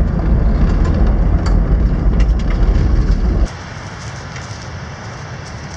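Toyota Land Cruiser 80 Series driving along a rough gravel track, heard inside the cab: a heavy, loud rumble of road and engine noise with scattered crackles from the gravel. About three and a half seconds in it cuts off abruptly to a much quieter outdoor hiss with a few faint clicks.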